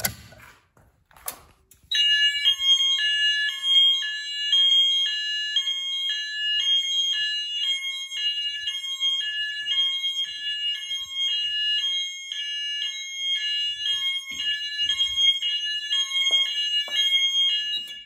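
A pull station is pulled with a couple of clicks. About two seconds later an electronic fire alarm siren sounds loudly, switching rapidly back and forth between a higher and a lower tone, and it cuts off abruptly near the end when the panel is silenced.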